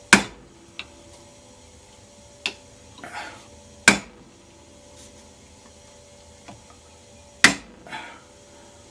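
Hammer blows driving a flat blade into the seam of a plastic laptop charger case held in a vise, to split the case apart. Three sharp strikes about three and a half seconds apart, with fainter knocks and short scrapes between.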